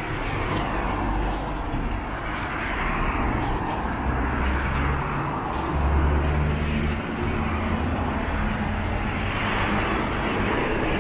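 Road traffic: cars and small vans passing on the street, engine rumble and tyre noise swelling and fading as each goes by, loudest about six seconds in.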